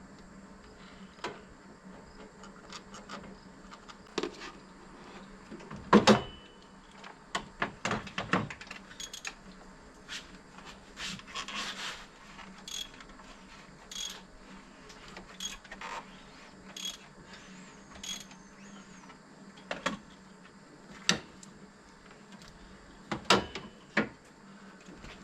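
Scattered, irregular clicks and knocks of hand tools and equipment being handled around an engine, over a faint steady hum. The loudest knocks come about six seconds in and again near the end.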